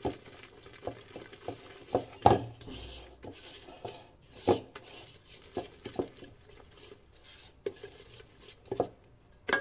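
Wire whisk stirring thick cake batter in a stainless steel bowl, its wires scraping and knocking against the metal in irregular strokes, with a few louder clanks. The batter is being lightened with a first third of beaten egg whites.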